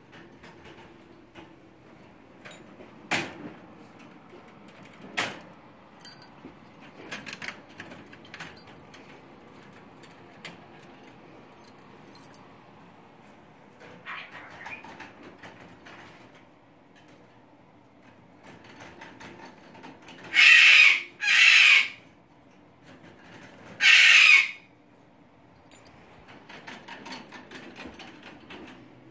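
A caged parrot giving three loud, harsh screeches, two close together and a third a few seconds later. A couple of sharp clicks and faint rustling come earlier.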